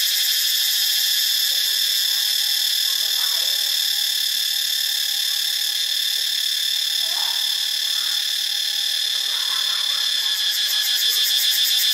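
Cicada calling: a steady high-pitched buzz with a fast pulsing texture, easing slightly in the middle and swelling again near the end.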